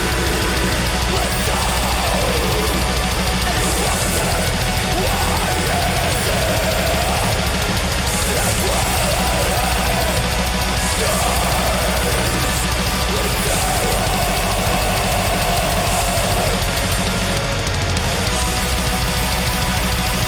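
Black metal song playing: dense, relentless wall of distorted guitars, drums and keyboards at a steady level.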